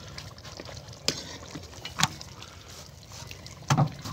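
A metal ladle knocking against a large aluminium cooking pot: sharp clinks about one and two seconds in, and a heavier knock near the end.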